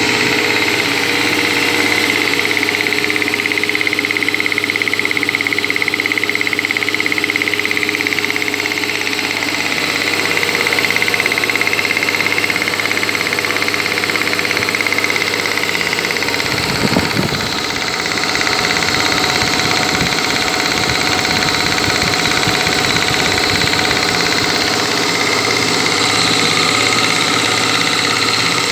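Air compressor driven by a 1.5 hp electric motor, running steadily with a constant hum and whine. A brief cluster of knocks comes about 17 seconds in.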